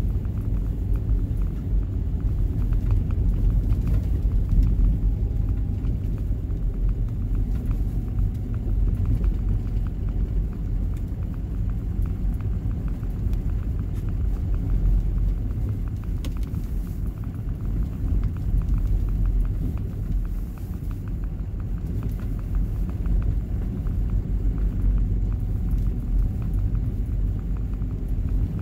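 Steady low rumble of a car driving on a snow-covered road, heard from inside the cabin: tyre and road noise mixed with the engine.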